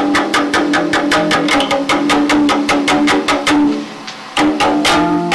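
Live band music from a cassette recording: fast, even strummed or picked strokes, about six a second, over a held note, with a brief drop in level about four seconds in before the playing resumes.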